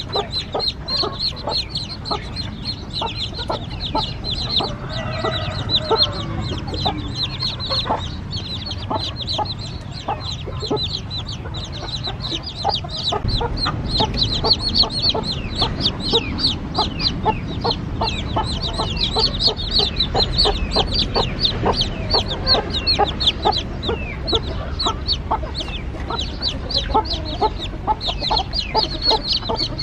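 Newly hatched Kacha Bim chicks peeping continuously: a rapid stream of short, high, falling peeps, several a second. A low rumble runs underneath from about halfway.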